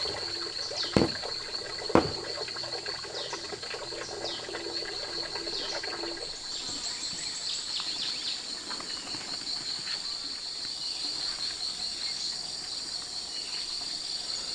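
Insects trilling steadily at a high pitch, cricket-like, with short falling chirps over them. Two sharp knocks come about one and two seconds in.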